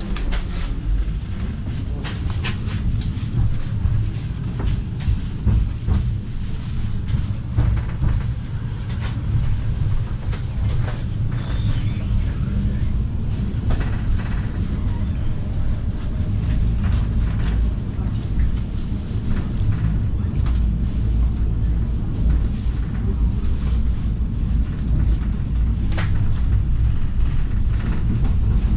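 Inside a Vityaz-M low-floor tram on the move: a steady low rumble from the running gear and the wheels on the rails, with scattered clicks and knocks.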